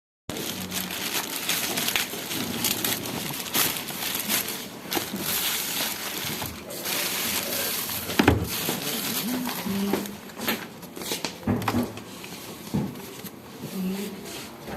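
Packaging crinkling and rustling as a selfie stick is unboxed, with many sharp clicks and knocks throughout.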